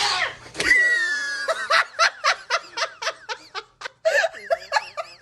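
A person laughing hard in a high voice: a squeal about a second in, then rapid breathless bursts of laughter, about four or five a second, that stop shortly before the end.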